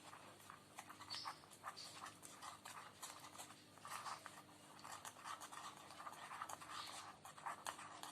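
A spoon faintly scraping and clicking as it mixes a sticky paste of honey, ground spice powder and ginger juice, in an irregular run of small scrapes.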